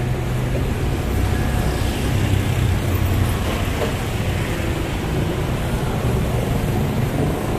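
Street traffic: engines of passing vehicles running, a steady low hum under a continuous haze of road noise.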